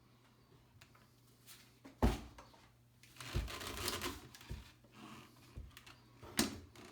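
Handling noises: a sharp knock about two seconds in, a stretch of rustling and scraping, then another sharp knock near the end.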